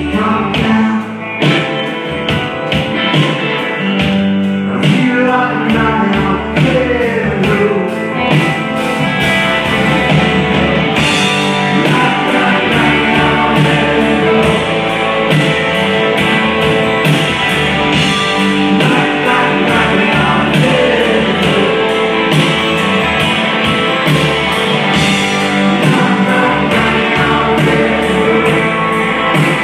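Live rock music: a male singer singing while strumming an acoustic guitar, with a steady beat behind him.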